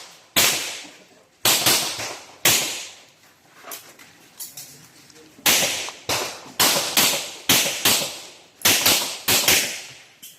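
A run of about fifteen gunshots, mostly fired in quick pairs (double taps), with a pause of about three seconds before the shooting picks up again. Each shot is a sharp crack that dies away quickly.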